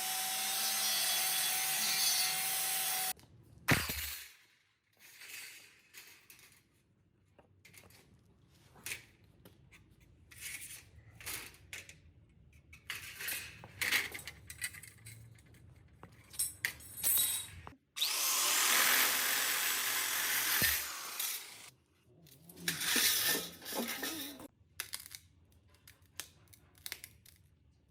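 A handheld power tool runs in loud bursts on a rusty car door: about three seconds at the start, again for about three seconds two-thirds of the way through, then in shorter bursts. In between are clicks, knocks and scraping from hand work.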